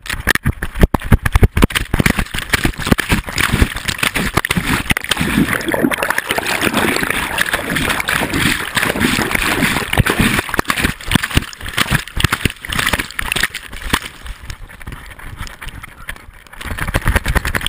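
Rapid knocking and rustling from a GoPro camera housing strapped to a moving dog's chest harness: fur brushes over the case and the loosely fastened camera keeps knocking against the dog's chin.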